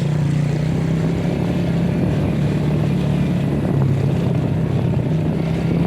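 Motorcycle engine running steadily while riding, its pitch holding nearly level, over a rushing haze of wind and road noise.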